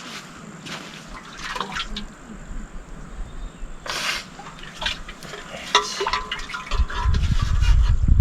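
Water splashing and trickling in short irregular spurts, then about seven seconds in a loud, low rumble.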